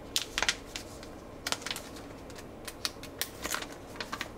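Mylar packaging pouch crinkling as it is squeezed and twisted in the hands: irregular sharp crackles in clusters, near the start, about a second and a half in, and around three seconds.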